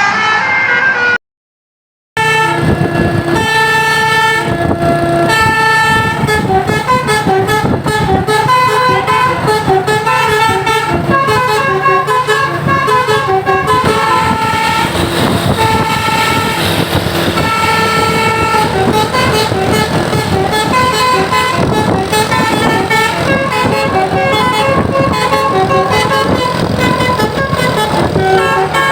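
Basuri multi-tone 'telolet' bus horn playing a melody of stepped notes over a steady low engine hum. The sound cuts out completely for about a second near the start, then the horn tune carries on.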